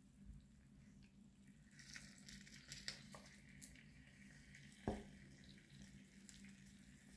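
Faint trickle and small sticky ticks of hot caramel being poured from a stainless steel saucepan onto semolina puddings in ceramic ramekins, with one sharp knock about five seconds in. A low steady hum sits underneath; overall near silence.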